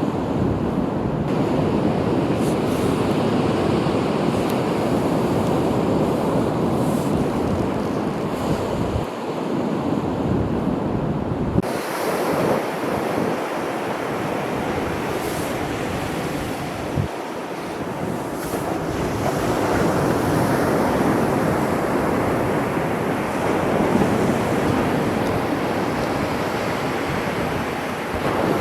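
Winter sea surf: waves breaking and washing continuously on the shore, with wind gusting on the microphone.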